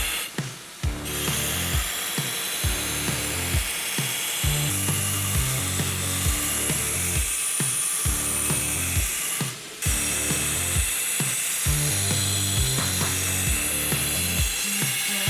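Background music with a steady beat of about two thumps a second over a changing bass line.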